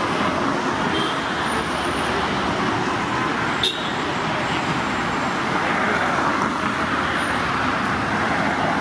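Steady road traffic noise, an even dense hum of passing vehicles, with one brief sharp click about three and a half seconds in.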